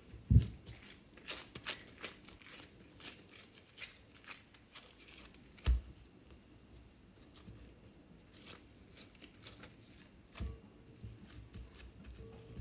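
Disposable gloves rustling and crinkling as hands handle a soft ball of dough and press it into a glass bowl, with a few short thumps, the loudest just after the start and another about six seconds in.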